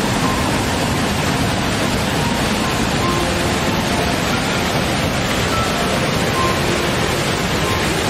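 Wide waterfall in heavy flow, water pouring over a broad rock ledge: a loud, steady rushing of falling water, with a few faint short tones scattered through it.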